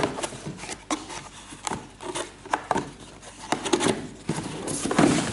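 A cardboard shoebox being handled, its lid closed and pressed down by hand. Irregular knocks and taps mix with hands rubbing and scraping on the cardboard, and a longer scrape near the end is the loudest.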